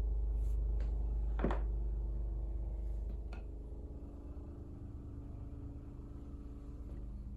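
Steady low electrical hum with a few light clicks and one sharper knock about a second and a half in, from piano action parts being handled during weighoff; the hum drops in level about three seconds in.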